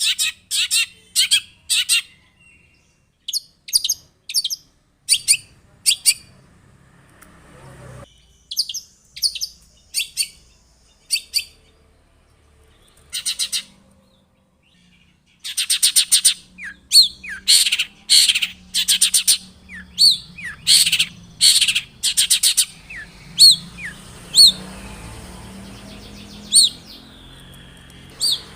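Long-tailed shrike (cendet) singing: short harsh chattering notes in clusters with brief pauses, breaking into a dense rapid run about halfway through, then a few short down-slurred whistles near the end.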